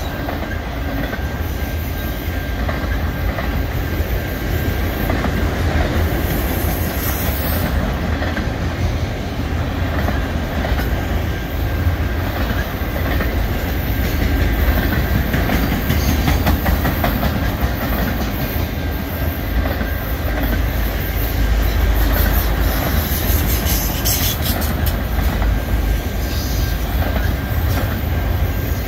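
Auto-rack freight cars rolling past close by: a steady heavy rumble of steel wheels on rail with clickety-clack over the track.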